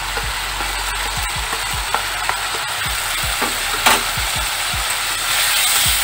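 Mustard oil sizzling steadily in a kadai with ground spices just added, with scattered small clicks and one sharper click about four seconds in. Near the end a spatula starts stirring and the sizzle gets louder.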